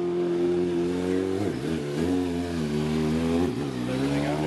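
2010 Kawasaki ZX-6R's inline-four engine running at steady revs, the pitch dipping briefly and recovering twice; the engine has a rod knock awaiting repair.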